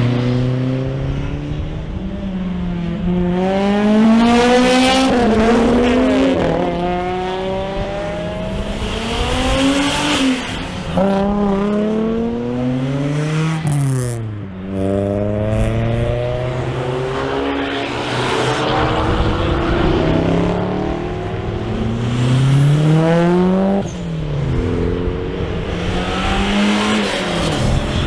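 Car engines accelerating hard through the gears: the revs climb steeply, drop sharply at each upshift and climb again, over and over.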